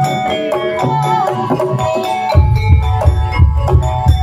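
Banyumasan gamelan accompanying a kuda kepang dance: struck metallophones playing a steady melody of held, ringing notes, with heavy drum strokes coming in about two and a half seconds in.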